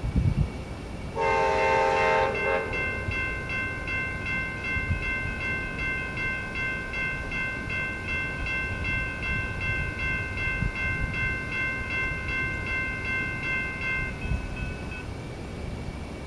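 A train horn sounds one short blast about a second in. After it, the grade crossing's electronic warning bells ring with a steady pulsing ring while the gates rise, and stop a couple of seconds before the end.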